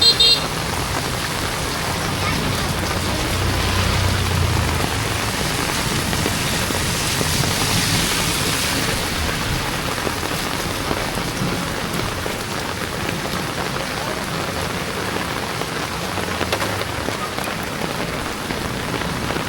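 Heavy rain pouring steadily on a city street, with a low rumble about four seconds in. A brief, sharp high-pitched sound right at the start is the loudest moment.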